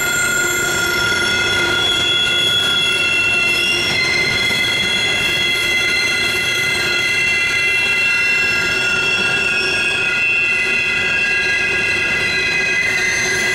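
Norfolk Southern freight train of diesel locomotives and coal hopper cars rolling past on the Horseshoe Curve, its steel wheels squealing against the rails. Several high squeal tones hold steady over the rolling rumble throughout: flange squeal from the wheels grinding through the tight curve.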